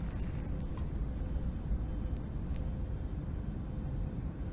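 Steady low rumble of airliner cabin noise, with a faint steady hum above it.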